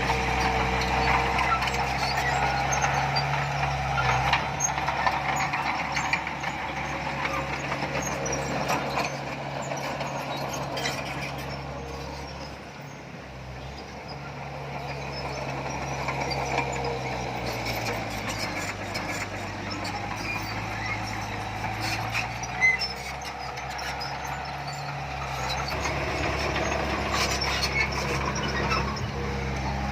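Diesel engine of heavy earthmoving machinery running under changing load. It goes quieter a little under halfway, its pitch drops, then it climbs back up near the end. Scattered clanks and rattles come through over the engine.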